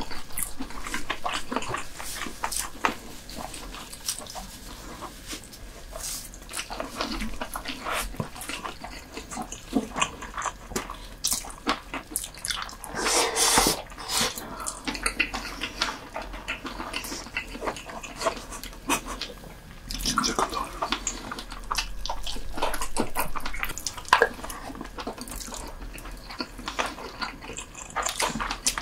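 Close-miked wet eating sounds of soy-sauce-marinated raw lobster: chewing, sucking and lip smacking, many small wet clicks, with a louder, longer wet noise about halfway through.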